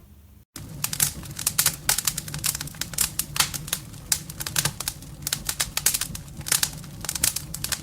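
Crackling fireplace sound effect played through small portable speakers: irregular sharp pops and snaps over a low steady hum. It starts about half a second in.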